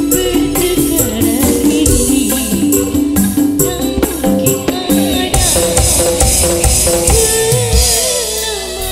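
Live jaranan band music: kendang hand drums and percussion under a melody, with a woman singing into a microphone. The high percussion grows brighter past the middle.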